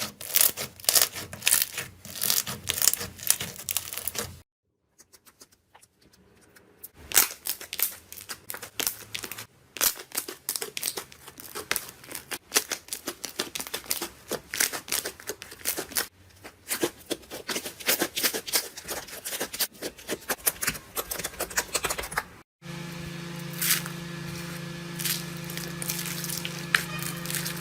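Slime being squeezed and pressed by hand, making dense crackling and popping clicks, in separate bursts with a short near-silent gap early on. A steady low hum comes in under the crackling in the last few seconds.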